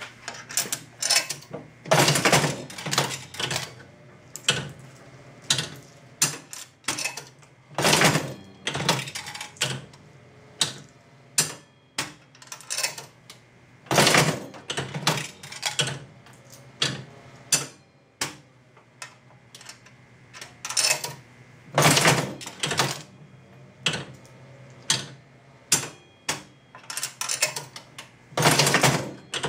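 Jennings Sun Chief five-cent mechanical slot machine being played: each pull of the handle sets off a loud clatter, then a run of clicks and clunks as the reels spin and stop. Five plays, about six seconds apart, over a low steady hum.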